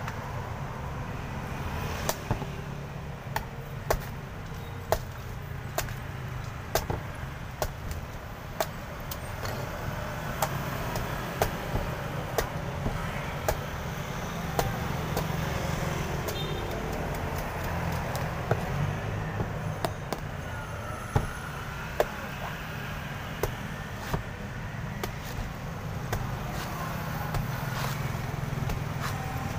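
Cleaver chopping the husk off a young green coconut: a run of sharp, irregular chops, roughly one every half second to a second, over a steady low rumble of road traffic.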